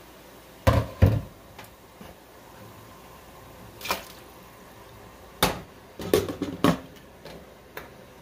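Kitchen clatter of a glass pot lid and a bowl against a stainless cooking pot: two sharp knocks about a second in, a soft slide as noodles are tipped from the bowl into the boiling water about four seconds in, then a quick run of knocks and clinks as the lid goes back on.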